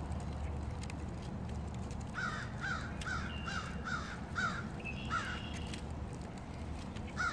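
A crow cawing in a quick run of about eight harsh calls, starting about two seconds in, with another run beginning right at the end, over a steady low rumble.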